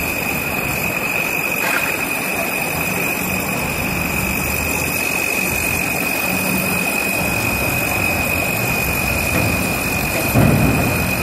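Construction-site machinery running: a steady diesel engine drone from excavators working in a building pit, over a constant high-pitched whine. A brief louder low rumble comes about ten seconds in.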